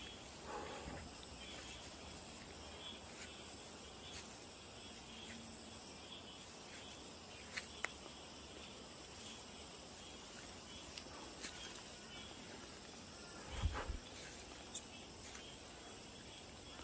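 Faint steady chorus of insects, several high tones held throughout, with a few light clicks and rustles. A brief low thump comes about fourteen seconds in.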